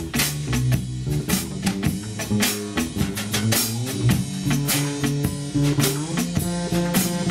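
Guitarrón plucking low, walking bass notes under a drum kit keeping a steady beat with cymbal hits, in a live acoustic improvisation.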